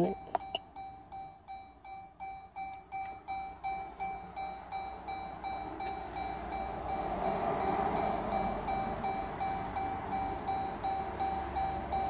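Repeating electronic warning chime, a steady tone beeping about twice a second.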